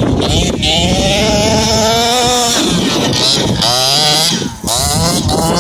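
Small two-stroke petrol engine of a 1/5-scale RC buggy revving up and down as it drives, its pitch rising and falling several times, with a brief drop about four and a half seconds in.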